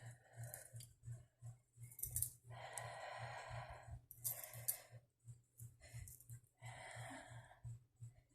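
A woman's heavy breathing and sniffing while she tries to hold back a sneeze brought on by dust: two long breaths out, with short sharp sniffs between them.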